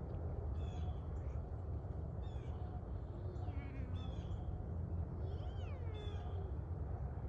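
Short high animal calls, several in a row about a second apart, over a steady low outdoor rumble.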